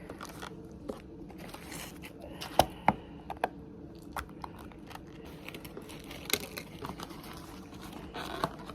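Takeout food packaging rustling and crinkling as it is handled, with scattered sharp clicks and taps, the loudest about two and a half seconds in and again past six seconds.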